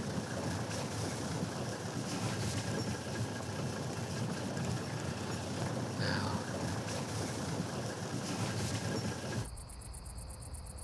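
Vehicle engine and driving noise, a steady rumble, on a night drive. About nine and a half seconds in it cuts abruptly to crickets chirping in a fast, even rhythm.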